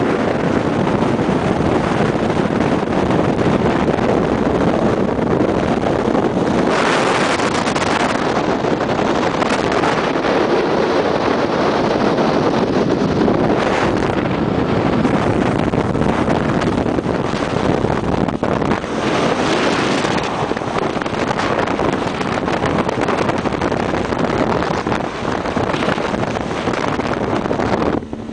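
Small motorboat under way: a steady rush of engine, hull and water, with heavy wind buffeting the microphone and two louder gusts.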